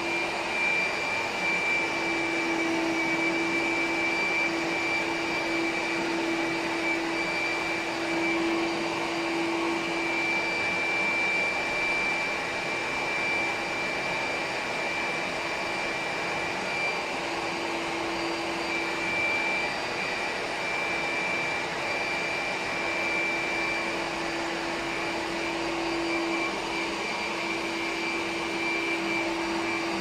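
Handheld leaf blower running steadily at full output, a constant rush of air with a steady whine over it, blowing a gust of about 60 km/h of airflow.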